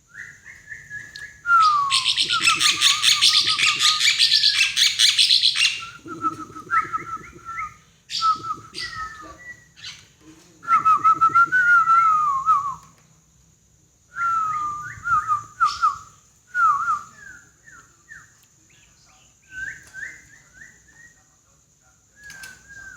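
Starling calling: a harsh rasping chatter for about four seconds, starting a second and a half in, with whistled notes under it. Bouts of short whistled notes that slide up and down follow.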